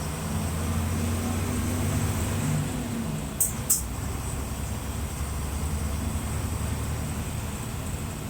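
Mercedes-Benz OF-1721 bus's six-cylinder turbo diesel engine running with a steady low rumble that swells slightly in the first few seconds. Two brief sharp high sounds come in quick succession about three and a half seconds in.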